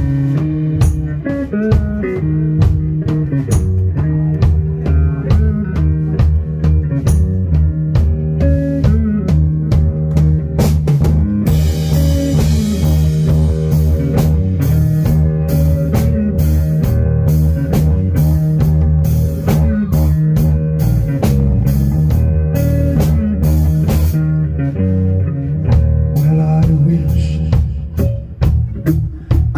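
Live blues-rock band playing an instrumental passage: electric guitar, electric bass and drum kit, with cymbals washing out briefly about halfway through.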